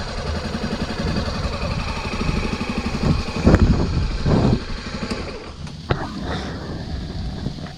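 Motorcycle engine idling with an even pulse, rising in two short swells around the middle, then running quieter, with a sharp click about six seconds in.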